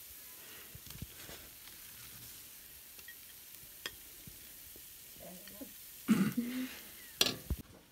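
Metal ladle scooping and scraping thick, ghee-rich halwa in a large aluminium pot and piling it onto a plate, with small scattered clicks over a faint steady hiss. A louder knock-and-scrape comes about six seconds in, then a sharp clink about a second later.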